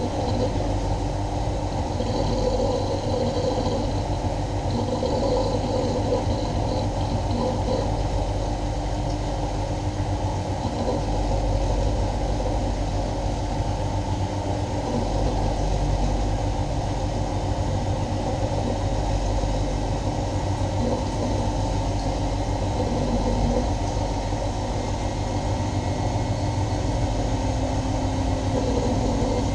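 Miele Novotronic W923 washing machine running steadily, a continuous low hum and rumble from the drum and motor.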